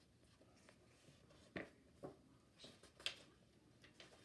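Near silence with a few faint, short paper rustles as a paperback picture book's pages are handled and turned.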